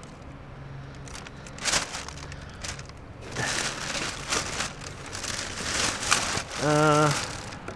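Hands rummaging through a box of wires and small junk: irregular rustling, scraping and light clattering of loose items being moved about.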